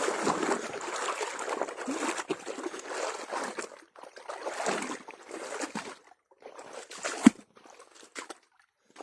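Water sloshing and trickling while an eel trap net is handled in shallow water, with one sharp knock about seven seconds in.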